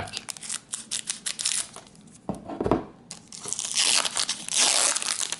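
A foil trading-card pack wrapper crinkling in the hands, then torn open with a loud, dense crackling rip about three and a half seconds in.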